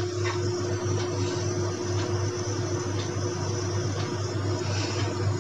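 A steady low hum with a faint hiss, with a few faint taps and scrapes of a spatula stirring cracked-wheat pulao in a non-stick pan.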